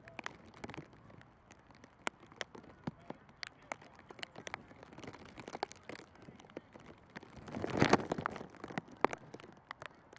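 Football being kicked and headed in a passing drill: a string of sharp, irregular thuds of boot and head on ball, with a louder rush of noise about eight seconds in.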